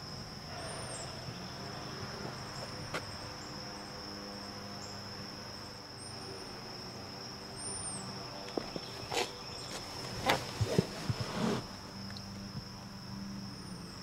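The 2014 Mazda3's 2.0-litre Skyactiv four-cylinder idling as a steady low hum, under a steady high insect chirr. A few short knocks and clicks come about two-thirds of the way through.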